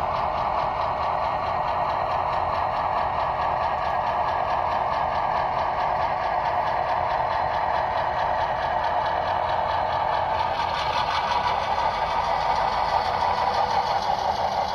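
Model diesel locomotive running along the track, its engine sound steady and thin as from a small speaker, growing a little louder in the last few seconds.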